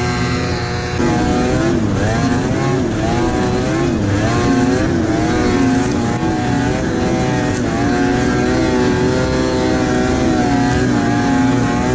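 Ski-Doo Formula III snowmobile's two-stroke engine running under load through deep powder snow, its pitch rising and falling again and again as the throttle is worked, then holding steadier in the second half.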